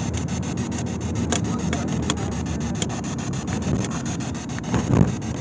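Steady low rumble and hiss inside a car, overlaid by the fast, even crackle of a spirit box sweeping through radio static. A brief, louder knock comes about five seconds in.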